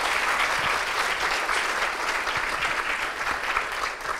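Audience applauding in a lecture hall, steady clapping from many hands that begins to fade near the end.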